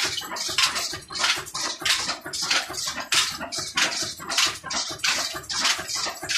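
An old Ruston Hornsby diesel engine driving a flour mill (atta chakki), running at a steady pace. It makes an even, hissing, scraping beat of about three strokes a second.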